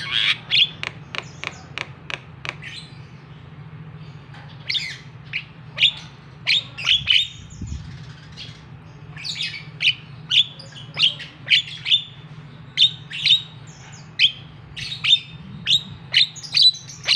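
Javan myna (jalak kebo) calling: a quick series of short, clipped notes. The notes stop for about two seconds near the start, then resume in rapid runs.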